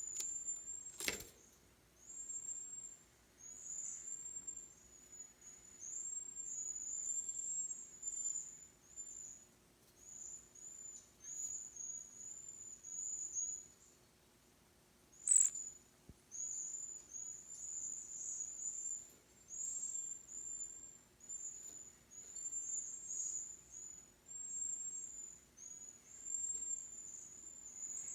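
Cedar waxwing giving its very high, thin calls: short notes repeated over and over, with a brief pause about halfway. Two sharp clicks, one about a second in and one about halfway.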